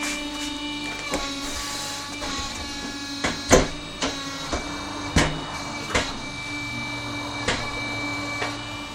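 Truck tyre changing machine at work: a steady motor hum with irregular sharp metallic knocks and clanks, the loudest about three and a half seconds in.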